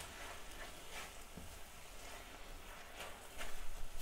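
Spatula stirring chicken and onions in a nonstick wok: faint scraping with a few light taps over a soft frying hiss, growing busier and louder near the end.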